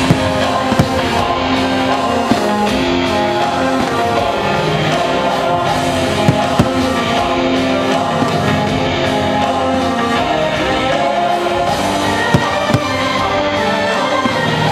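Fireworks show music with singing, with several sharp firework bangs bursting over it, some coming in quick pairs.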